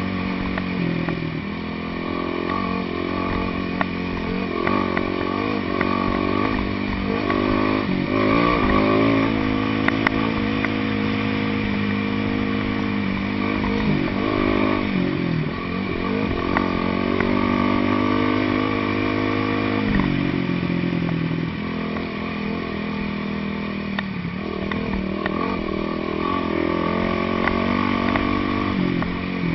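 Dirt bike engine running while riding, its pitch rising and falling repeatedly as the throttle opens and closes and the gears change. A few sharp clicks are heard along the way.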